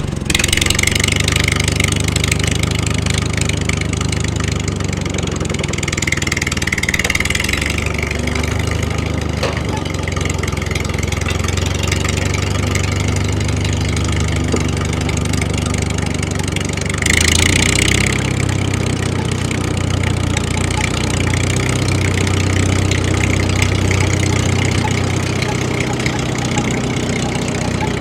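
Engine running steadily at idle, growing briefly louder about two-thirds of the way through.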